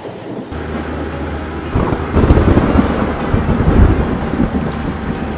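Thunder rumbling: a deep rolling rumble that swells about two seconds in and fades over the next few seconds, over a steady low hum.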